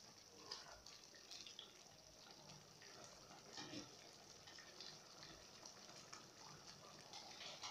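Very faint, scattered pops and ticks of a tomato-based chicken stew simmering in an aluminium pot, with a wooden spoon stirring it at the start.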